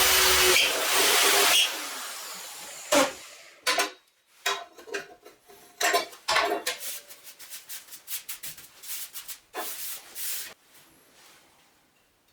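A 9-inch (230 mm) angle grinder running loudly, switched off about a second and a half in and spinning down over the next two seconds. A string of sharp knocks and clanks follows, ending a couple of seconds before the end.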